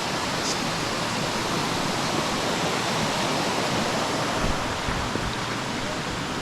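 Steady rush of a waterfall cascading into pools.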